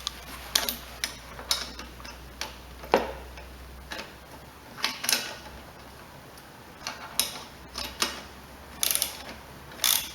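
Ratchet wrench clicking in short, irregular spurts as a tight bolt is worked loose.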